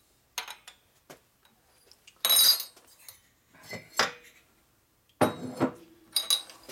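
Metal engine parts and hand tools clinking and clanking on a steel workbench as a finned cylinder with its head is lifted off an engine crankcase and set down. A series of separate knocks, the loudest a harsh clatter about two and a half seconds in, a sharp knock near four seconds, and a clank with a brief ring after five seconds.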